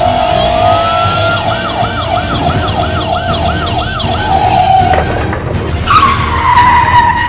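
Toy police SUV's electronic siren yelping, a quick up-and-down wail about three times a second. About six seconds in it gives way to a long tire screech that slides down in pitch.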